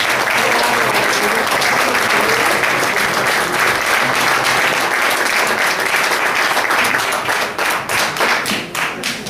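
An audience applauding steadily, the clapping thinning into scattered single claps near the end.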